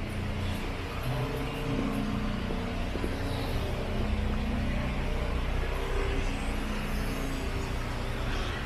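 City street traffic: a motor vehicle's engine running with a steady low hum.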